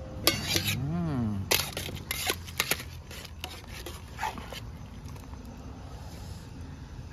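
Perforated aluminium strainer ladle knocking and clinking against a steel pot and bowl as boiled beans are scooped out and tipped across, with several sharp clicks between about one and a half and three seconds in. A short rising-then-falling vocal sound about a second in.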